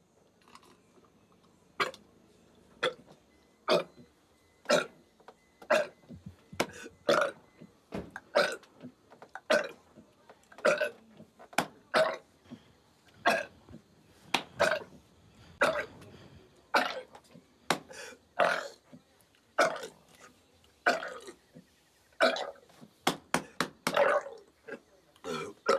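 A man belching over and over, short loud burps about one to two a second, starting about two seconds in.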